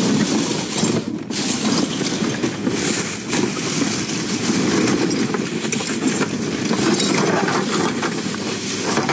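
Plastic garbage bags rustling and crinkling continuously as gloved hands dig through them in a dumpster of cardboard and trash.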